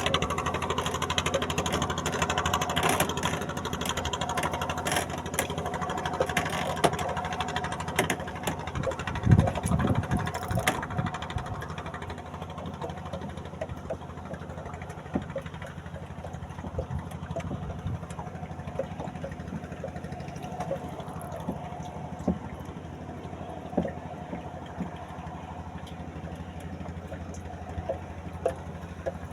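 Small boat's engine running steadily, with scattered clicks and knocks. It becomes quieter about eleven seconds in.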